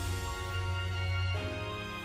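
Background music: sustained chords over a steady bass, the harmony changing about a second and a half in.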